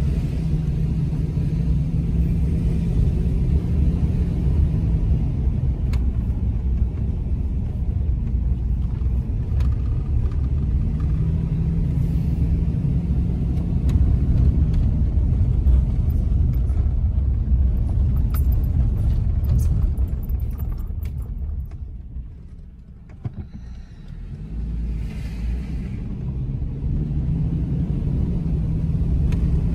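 Car driving, heard from inside the cabin: a steady low rumble of engine and tyre noise. It eases off for a couple of seconds about three-quarters of the way through, then builds back up.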